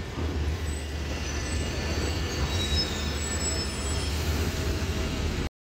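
Double-decker bus engine running as the bus passes close by and pulls away, a steady low rumble. The sound cuts off suddenly near the end.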